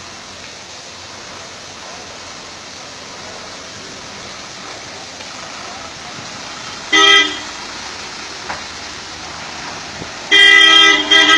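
Tourist bus air horn sounding a short toot about two-thirds of the way in, then a longer blast with a brief break near the end, over a steady hiss of water spraying on the bus.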